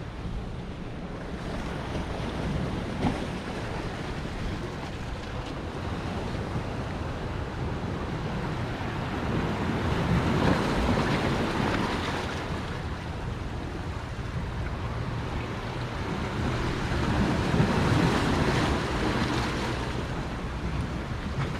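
Ocean surf washing onto the beach, with wind buffeting the microphone. The wash swells louder twice, about halfway through and again near the end.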